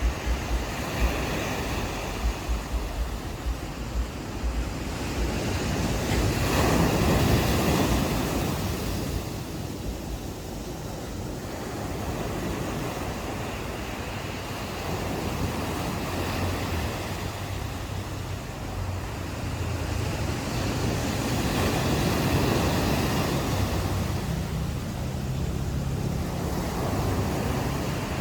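Ocean waves breaking and washing up a beach, surging twice, with wind buffeting the microphone. A low steady hum comes in near the end.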